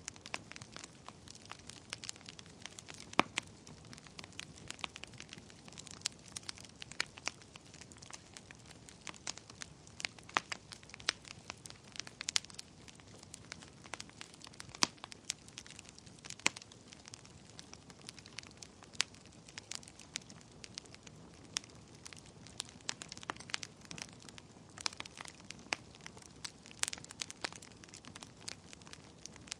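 Wood fire burning in a fireplace: irregular sharp crackles and pops, several a second, some much louder than others, over a low soft hiss of the flames.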